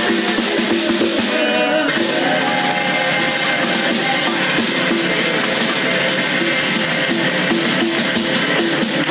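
Live rockabilly from an electric guitar and a snare drum: the hollow-body guitar strums and picks lines over a driving snare beat.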